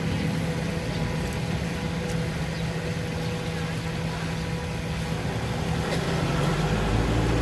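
A steady engine hum, getting louder near the end.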